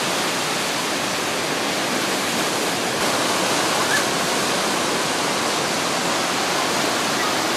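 Ocean surf breaking, a steady roar of water with no let-up.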